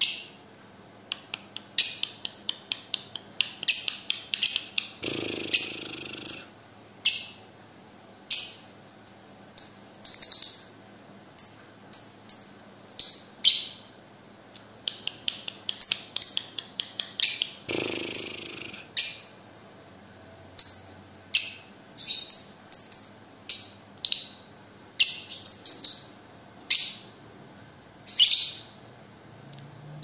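Young caged lovebird singing: a fast string of sharp, high chirps, broken twice by longer, harsher chattering runs, about five seconds in and again near eighteen seconds.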